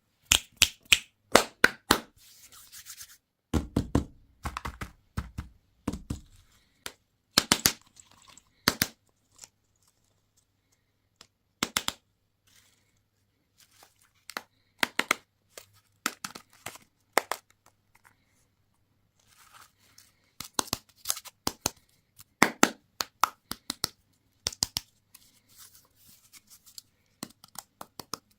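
Hands opening plastic candy and toy packaging: irregular crinkling and tearing with sharp clicks and snaps, and a few dull thumps about four seconds in.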